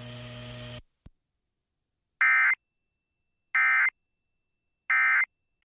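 Three short, identical Emergency Alert System end-of-message data bursts (the SAME 'NNNN' warble), evenly spaced about 1.4 s apart, marking the close of the alert. Before them a steady hum cuts off with a click within the first second.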